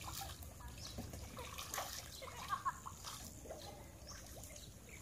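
Faint splashing and swirling of fish at the surface of a pond, with a couple of slightly louder splashes about two and a half seconds in.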